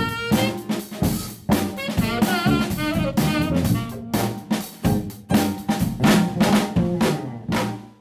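Small jazz ensemble playing, with drum kit hits under pitched instrument lines; the music ends just at the close.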